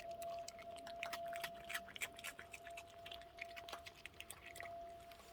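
Faint town fire siren holding one steady tone, the signal that calls out the volunteer fire department. Over it come quick, irregular crunching clicks of raccoons eating snacks.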